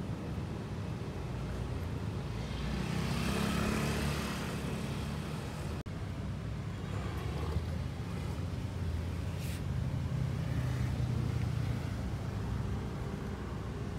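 Steady road traffic rumble, with a vehicle passing that swells and fades about three to five seconds in.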